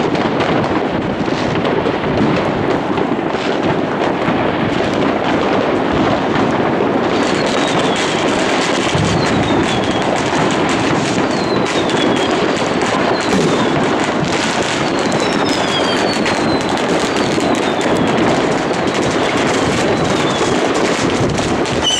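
Massed fireworks going off all over a city: a continuous rattle of overlapping bangs and crackling. From about a third of the way in, short falling whistles cut through, one every second or so.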